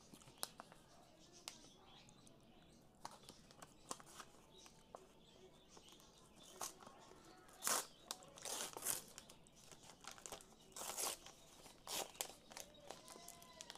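Paper wrapper of a shawarma wrap crinkling and tearing as it is peeled open by hand, in scattered rustles, the loudest around eight to nine and eleven seconds in.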